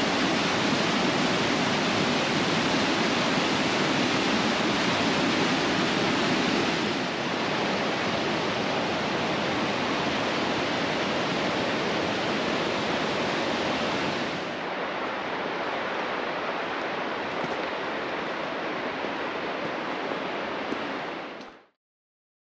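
Whitewater of Big Creek rushing over and between boulders, a steady, even rush. It drops a little in level twice, then cuts off to silence near the end.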